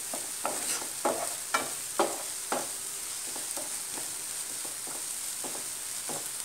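Chopped onions sautéing in oil in a nonstick frying pan, with a steady sizzle. A wooden spatula stirs and scrapes against the pan about twice a second for the first three seconds, then less often.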